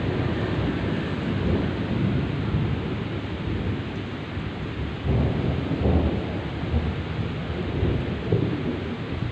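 Heavy rain pouring down steadily under a long, rolling thunder rumble that swells about five to six seconds in.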